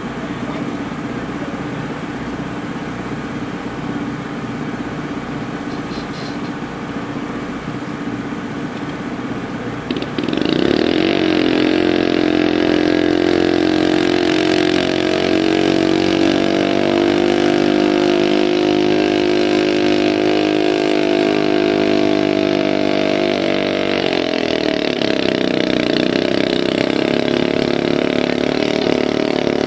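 Small garden tractor engine running steadily, then about ten seconds in it throttles up and runs loud and steady under load, pulling a weight sled. It eases briefly once later and picks up again.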